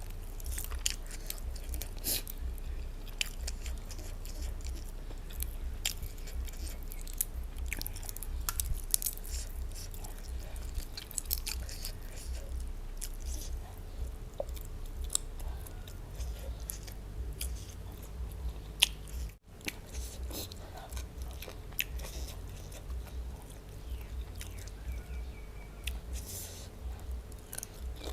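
Close-up chewing and biting of food, with frequent crisp crunches and wet mouth clicks. There is a brief break about two-thirds of the way in.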